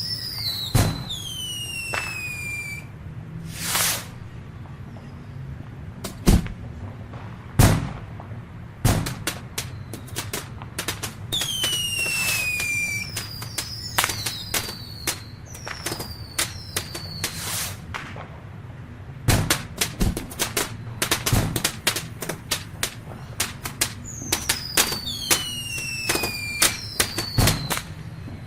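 Fireworks going off: many sharp bangs and crackling reports, a few deeper booms, and several whistling fireworks whose whistles fall in pitch. The bangs come thickest in the second half.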